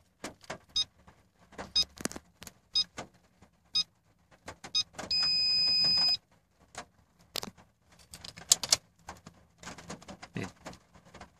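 Toyota Vigo dashboard electronics and ignition key: a short high electronic pip about once a second, then a steady high beep lasting a little over a second, among scattered clicks and taps of the key being switched off and back on to reset the water-in-fuel-filter warning light.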